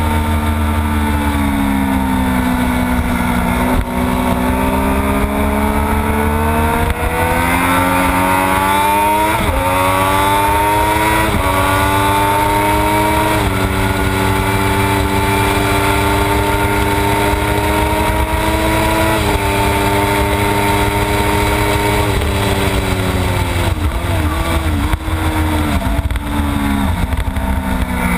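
Onboard sound of a Triumph Daytona 675's three-cylinder engine at speed on a race track, under steady wind rush. The engine pitch climbs under acceleration through the first ten seconds, with a couple of breaks as it shifts. It holds high and fairly steady through the middle, then drops and wavers in the last few seconds as the bike slows for a corner.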